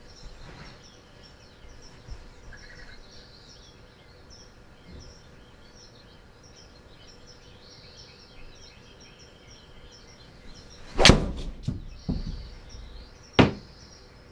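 A 3-iron strikes a Titleist Pro V1 golf ball about eleven seconds in, a single sharp crack as the ball smacks into the simulator's impact screen, followed by a few smaller knocks as it drops, and one more sharp knock about two seconds later. The strike was a little off the toe but still solid.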